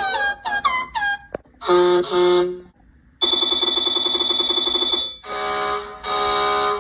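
Cartoon train horns and whistles sounding one after another. First comes a run of quick short toots that bend down in pitch, then a double toot, then one long steady horn blast of about two seconds, and two more toots near the end.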